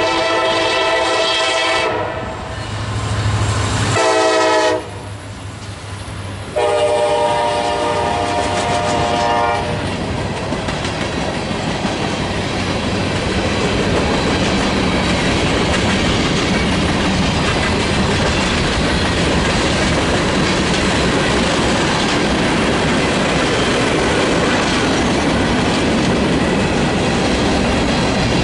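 Train horn sounding a chord in three blasts, long, short, then long, followed by the steady rumble of the train rolling past with wheels clicking over the rail joints.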